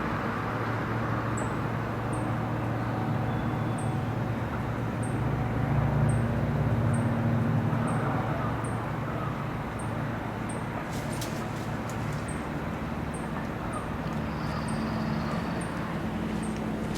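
Street traffic: a steady low engine hum with general road noise, swelling for a couple of seconds about six seconds in. A faint high ticking repeats a little more than once a second, and a few sharp clicks come near the middle.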